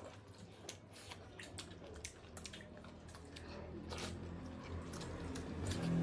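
Close-miked eating sounds: fingers squishing rice and curry together on plates and mouths chewing, with many small wet clicks and smacks. A faint low hum rises in level during the second half.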